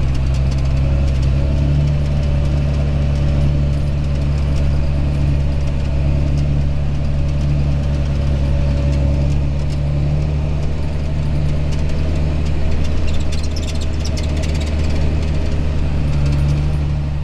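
John Deere 8320 tractor's diesel engine running steadily under load, a constant low drone, with scattered rattling and clicking from a Vogel & Noot Terra Disc 500 disc harrow being pulled. The clicking grows busier a little past the middle.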